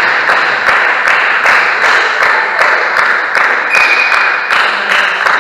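Rhythmic clapping, about three claps a second, over a steady wash of crowd noise, echoing in a large sports hall. A short high whistle sounds about four seconds in.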